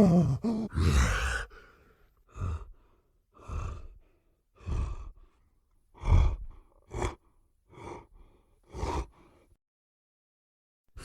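Giant gorilla creature sound effect: a falling groan that trails off, then a run of about seven short breathy huffs roughly a second apart, stopping well before the end.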